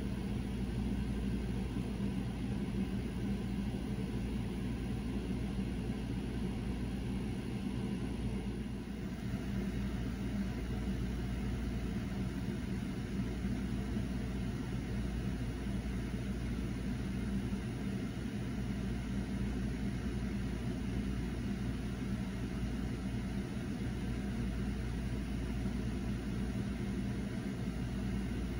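Small electric motor of a rotating display turntable humming steadily and low.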